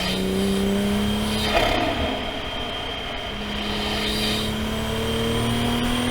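Toyota GR Supra (A90) engine under way on track, heard from inside the cabin: a steady engine note that climbs slowly, drops away about a second and a half in, then comes back and rises again.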